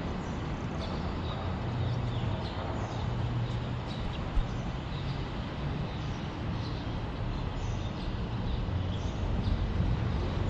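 Steady low rumble of traffic on the elevated expressway bridge overhead, with faint short high chirps scattered through it and a single sharp tick about four seconds in.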